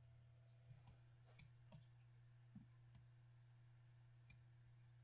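Near silence with a handful of faint, short computer mouse clicks spread over a few seconds.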